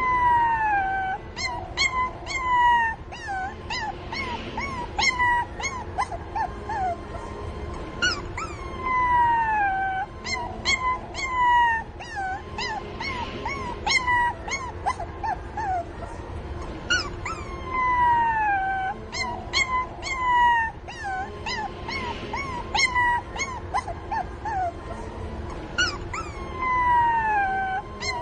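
Puppies whimpering and crying, calling for their mother: many short high-pitched whines that slide down in pitch, some longer and some clipped into yips. The same stretch of crying repeats about every eight or nine seconds.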